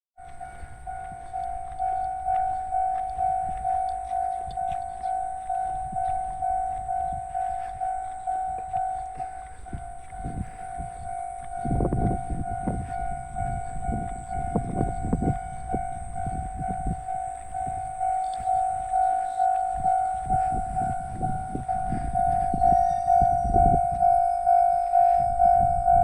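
Railway level-crossing alarm ringing its repeated electronic clang, about twice a second. From about halfway in, the rumble and clatter of a train build up under it and grow louder toward the end.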